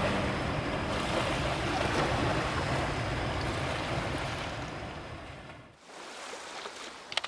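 Sea waves washing on the shore, a steady rush that fades out about five and a half seconds in, followed by a quieter seaside ambience.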